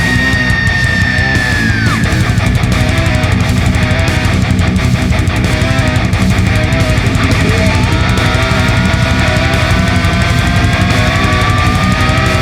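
Background heavy rock music with electric guitar and a steady driving beat; a held high note bends down about two seconds in, and another rises slowly through the second half.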